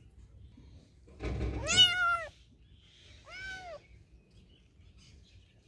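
A tabby kitten meowing twice: a loud meow about a second and a half in, then a fainter, shorter one about a second later, each rising and falling in pitch. A short burst of low noise comes just before the first meow.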